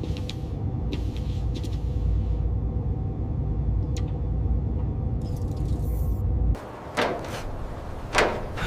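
Steady low rumble with a faint hum, which cuts off abruptly about two-thirds of the way in. It is followed by a few short swishing or scraping sounds near the end.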